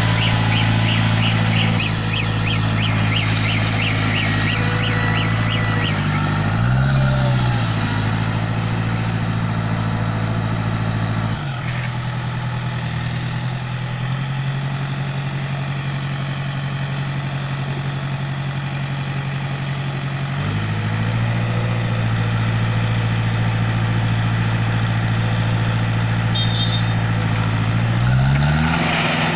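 Diesel engine of a self-loading concrete mixer running, its speed changing as the machine works: a brief rev about seven seconds in, a drop to a lower speed around eleven seconds, a rise again around twenty seconds, and another rev near the end. A fast high ticking, about four a second, runs over it for the first six seconds.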